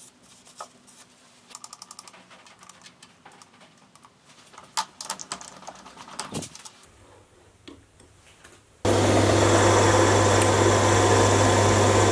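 Mini lathe starting up abruptly about three quarters of the way in and running steadily and loudly, a low motor hum under a dense mechanical whirr, with the workpiece spinning in the four-jaw chuck. Before that, light scattered clicks and small knocks of hand work on the compound slide.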